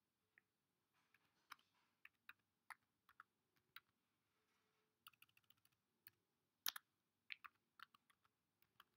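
Faint, irregular keystrokes on a computer keyboard, with a pause of about a second just before the middle. The sharpest single keystroke comes about two-thirds of the way through.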